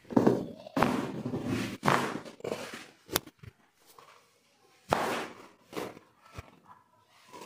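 Thuds and rustling from a patient's body being handled and shifted during a chiropractic adjustment, with one sharp click about three seconds in.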